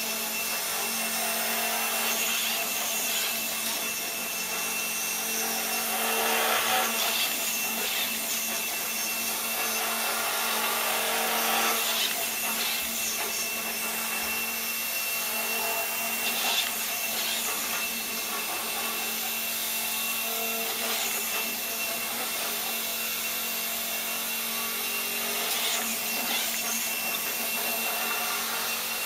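Motor-driven spinning gyroscopes of a home-built gyroscopic inertial thruster running with a steady whine and hum, surging louder every few seconds as the machine works to brake its pendulum swing.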